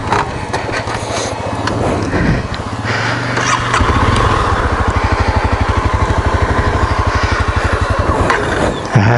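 Dual-sport motorcycle engine running at low revs over rocky trail, with a few sharp knocks and clatter. From about four seconds in the engine settles into an even, fast chugging.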